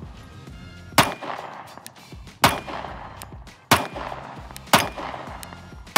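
Five shots from a Glock 43X 9mm subcompact pistol, fired singly at a slow, steady pace of about one a second, each a sharp crack with a short echo.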